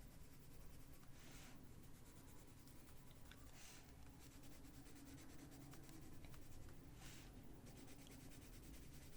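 Faint scratching of a Prismacolor colored pencil on paper, with a few slightly louder strokes.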